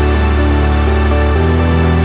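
Background music: a steady electronic track with sustained chords and a deep bass note, changing chord about a second and a half in.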